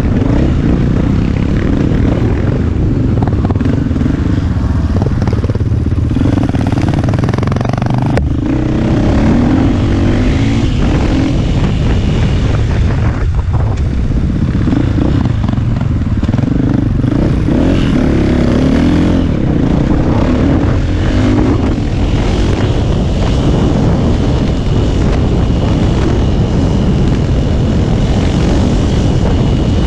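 KTM EXC450 enduro motorcycle's single-cylinder four-stroke engine running continuously under way off-road, its revs rising and falling.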